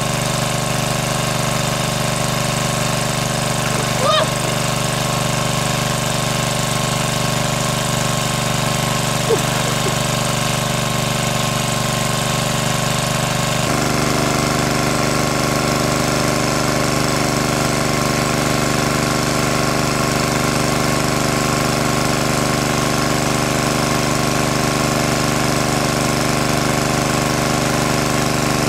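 Motor-driven water pump running steadily, sucking water out of the pool through its hose. Its note steps to a slightly different pitch about halfway through.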